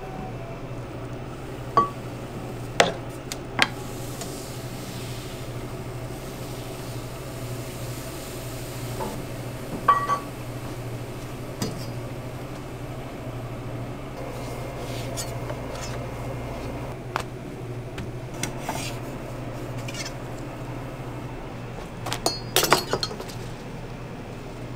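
Scattered clinks and knocks of crepe-making utensils (a batter ladle against its tub, a steel bowl and metal tools) over a steady low hum, with a quick cluster of clatter near the end that is the loudest.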